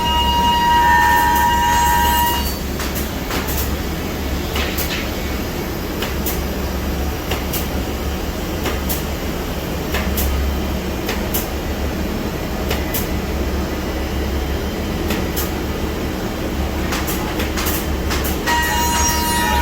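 Biesse Rover A Smart 5-axis CNC router machining a curved wooden part. The spindle gives a steady high whine for about the first two seconds, then a rougher, steady machining noise with a low hum and scattered clicks takes over, and the whine returns near the end.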